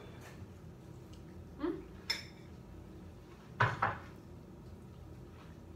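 Spoon clinking and knocking against a cereal bowl a few separate times, the loudest a quick double knock about three and a half seconds in.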